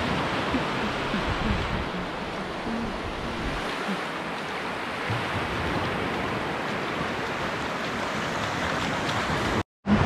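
Sea surf: a steady rush of waves breaking and washing up the beach. The sound cuts out for a moment near the end.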